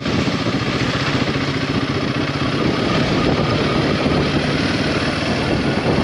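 Royal Enfield Himalayan 450's single-cylinder engine running steadily while the motorcycle is ridden along, under a steady rush of wind and road noise.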